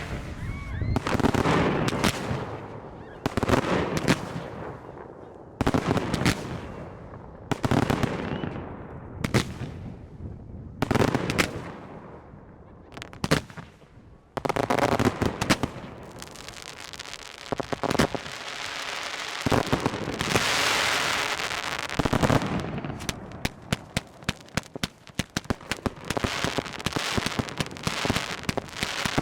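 Aerial fireworks display: a string of bangs from shells bursting every second or two, then a denser stretch with a long sizzling hiss and rapid crackling pops near the end.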